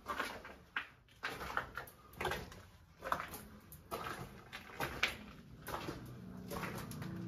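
Footsteps crunching on a gravelly chalk tunnel floor, roughly one or two steps a second. A low steady tone comes in near the end.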